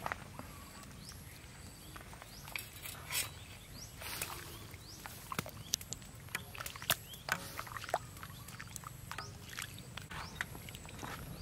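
Metal ladle clinking and scraping against a large aluminium wok and a wire-mesh strainer while skimming boiling water, with the water bubbling and sloshing underneath. The clinks come as an irregular series of sharp knocks, thickest from about five to eight seconds in.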